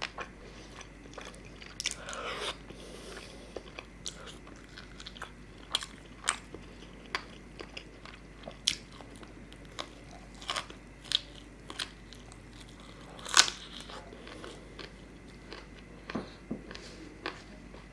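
Close-miked chewing and biting of tandoori chicken and curry eaten by hand, with irregular sharp mouth clicks, the loudest about thirteen seconds in.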